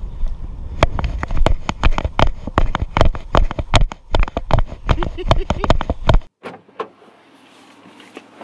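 Wind buffeting an action camera's microphone, with quick irregular knocks and thumps, several a second, from the camera being jostled by hurried walking. About six seconds in it cuts off suddenly to a much quieter car cabin with a faint low hum.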